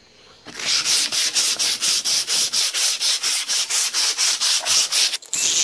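Hand sanding: a sheet of sandpaper rubbed quickly back and forth over the end of a fiberglass landing-gear leg, about five strokes a second, taking a little material off so the tight axle tube will slide on. Just before the end the strokes give way to a steady hiss.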